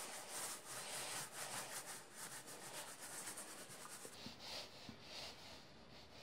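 Paintbrush strokes on a wall while painting clouds: a faint, repeated brushing and rubbing.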